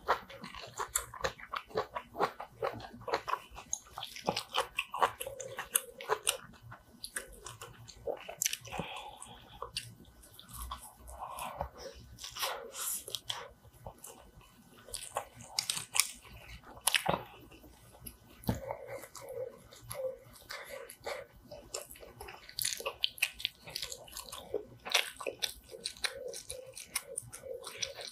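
Close-miked chewing and mouth sounds of someone eating rice and soft braised kimchi, with sharp clicks of a wooden spoon and chopsticks against wooden bowls.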